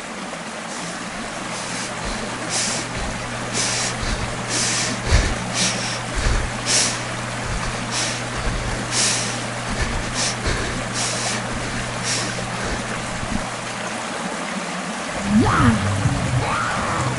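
A sound-effect drone: a rushing noise swells over a steady low hum, broken by irregular short hissing swishes. About 14 seconds in the hum drops out and rising, wavering tones come in.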